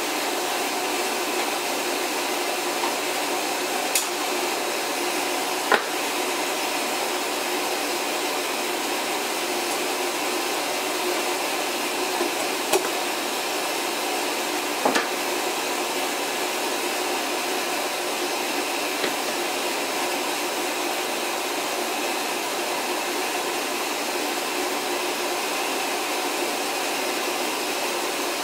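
Steady rushing hiss of a water softener in its regeneration (self-cleaning) cycle. A few sharp clicks and knocks come from screwdriver work on a horn strobe's metal mounting bracket and back box.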